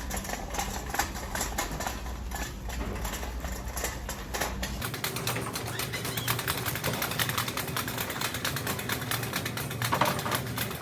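Shopping cart being pushed, its wheels and wire basket rattling in a fast, continuous clatter that grows denser about five seconds in.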